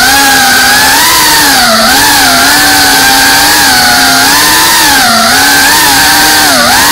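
FPV racing quadcopter's motors and propellers whining, the pitch wavering up and down with the throttle and dipping briefly near the end, over a steady airy hiss.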